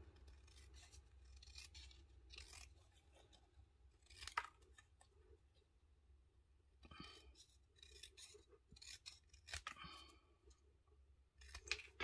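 Small scissors snipping around a piece of white card: a few faint, separate cuts with pauses between them, the sharpest about four seconds in.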